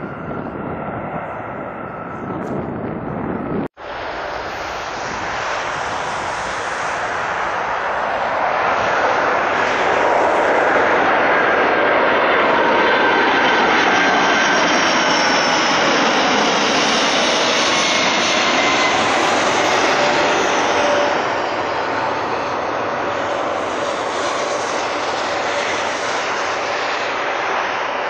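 Boeing 747 freighter's four jet engines on landing approach, passing close overhead: a jet roar that swells to its loudest about a third of the way in, with whining engine tones sliding down in pitch as it goes by, then easing a little. The sound of the previous aircraft clip cuts off sharply about four seconds in.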